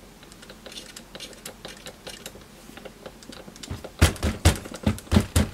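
Screwdriver working at a rusted, damaged screw in a metal case lid: faint scraping clicks, then from about four seconds in a run of loud sharp clicks, about four a second, as the bit fails to bite in the worn screw head.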